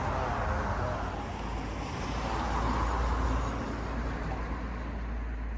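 Pressure washer running, its jet spraying in a steady rushing hiss over a low motor hum, swelling about two seconds in.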